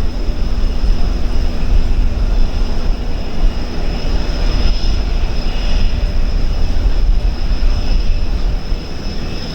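Panavia Tornado's twin RB199 turbofan engines running: a steady, loud rumble with a constant high-pitched whine over it.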